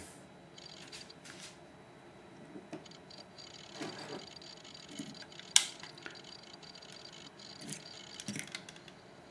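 Small hand tools being handled on a wooden workbench: forceps clamped on a tiny connector pin and a solder spool picked up. Faint taps and rubbing, with one sharp click about five and a half seconds in.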